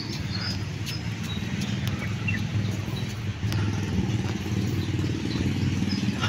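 Wind and handling rumble on a handheld phone microphone carried by a jogging runner: a steady low buffeting that flutters quickly, with a few short faint high chirps over it.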